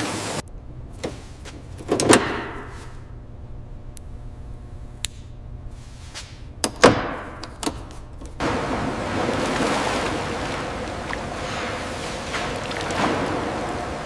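Sharp metallic clanks and knocks, five or six of them, several ringing briefly. About eight seconds in they give way to a steady rushing, hissing noise that swells now and then.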